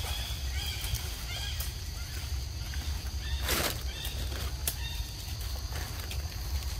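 Forest ambience: short bird chirps repeating every half second or so over a steady high insect drone and a low rumble. A brief rustling burst about three and a half seconds in is the loudest sound.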